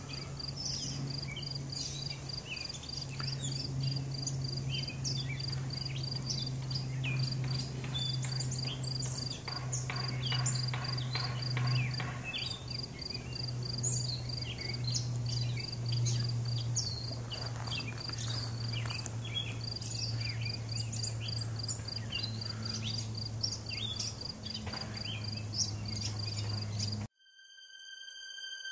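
An insect chirping in a steady, even high pulse, with scattered bird chirps over a constant low hum. About a second and a half before the end it cuts off abruptly, and a few electronic music tones begin.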